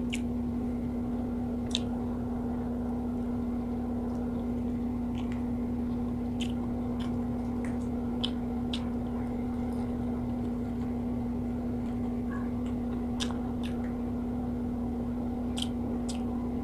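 A person chewing food with her mouth closed, with scattered small, sharp mouth clicks, over a steady low hum.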